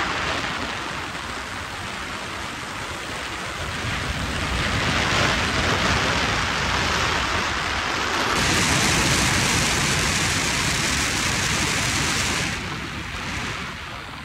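Airstream rushing over the microphone of a phone held out of a glider's cockpit in flight, a steady hiss. It grows louder and brighter about eight seconds in, then eases near the end.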